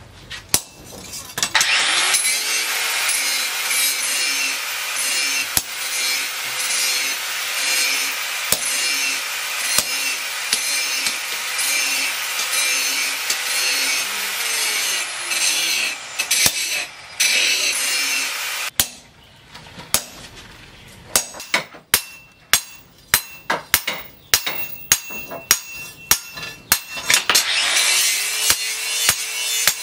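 A hand hammer striking a steel blade on a post anvil, a run of sharp, ringing blows about two to three a second in the last third. Before that, for much of the time, a steady rushing noise with a motor hum spins up, runs and winds down, and it starts up again near the end.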